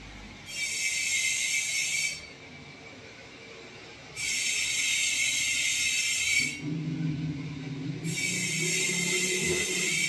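Three bursts of loud hissing, each about two seconds long, starting and stopping abruptly, with a low hum underneath during the second half.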